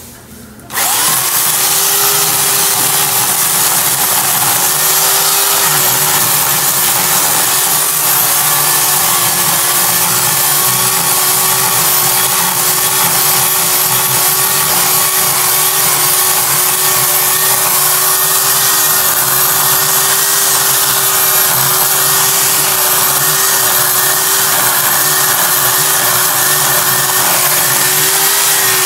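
Electric chainsaw starting abruptly about a second in and then running steadily at one even pitch with its bar cutting into a tree stump.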